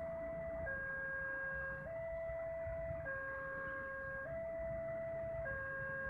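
Railway level-crossing warning alarm sounding its electronic two-tone chime, switching between a higher and a lower tone about every 1.2 seconds: the warning that a train is approaching and the barrier is closing. A low rumble runs underneath.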